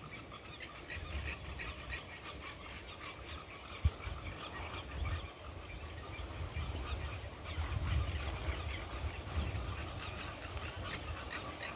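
Many short, repeated animal calls from a swampy pond over a low, uneven rumble, with a single sharp knock about four seconds in.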